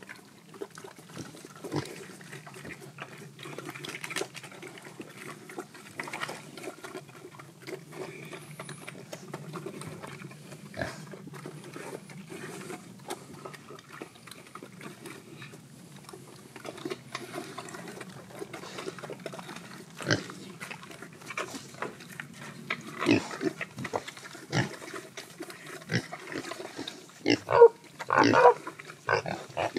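Pigs grunting steadily while rooting in rocky ground, with scattered short knocks and scuffs. Near the end the grunts get louder and come in quick clusters.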